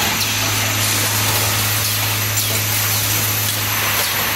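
Automatic caster assembly and bracket-riveting machine running: steady machine noise with air hiss and a low hum, and light clicks from the mechanism cycling.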